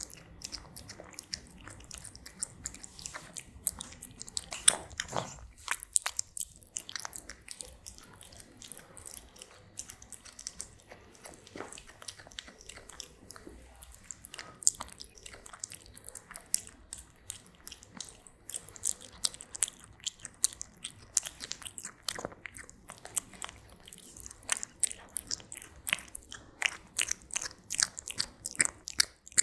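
A cat chewing and biting its food close to the microphone: a steady run of short, sharp crunching clicks that come faster near the end.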